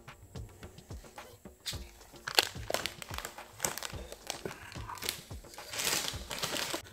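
Plastic food wrapper crinkling, with irregular sharp crackles and a longer rustle near the end.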